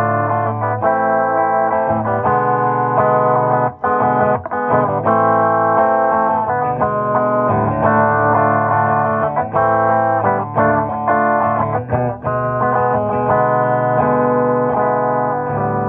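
Electric guitar, a Fender Stratocaster, playing a sequence of ringing chords that change every second or two, with brief breaks about four seconds in.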